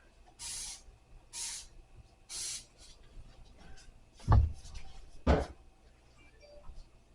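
Three short squirts of a trigger spray bottle of cleaner, about a second apart, then two heavy thumps about a second apart.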